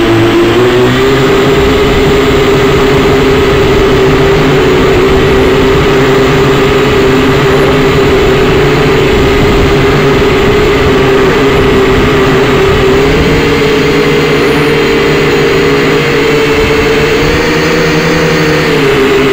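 Syma X5C-1 toy quadcopter's four small coreless motors and propellers running at speed with a steady, loud high-pitched buzz. The pitch rises a little twice in the last third, then drops back just before the end.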